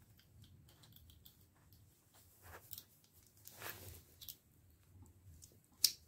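Faint plastic clicks and short scrapes as an RJ45 pass-through connector, on an Ethernet cable, is handled and fitted into the crimping tool's jaw, with one sharper click near the end.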